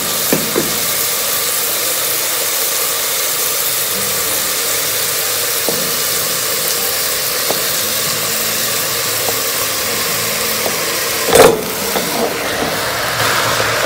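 Vegetables frying in hot oil in a pot, a steady sizzle as cooked rice is tipped in. About eleven seconds in, a loud knock as a metal spoon scrapes the last of the rice out of the bowl into the pot.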